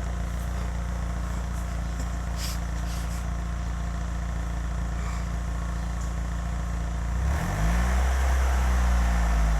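Chrysler PT Cruiser's four-cylinder engine running through an aftermarket muffler: a steady idle, then about seven seconds in the throttle is blipped and the exhaust note rises and gets louder for the last couple of seconds.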